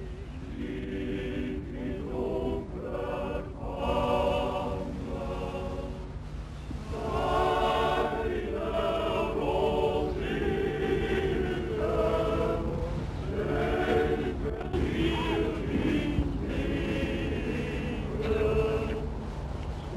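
A choir singing in phrases of held, wavering notes, with a steady low hum underneath.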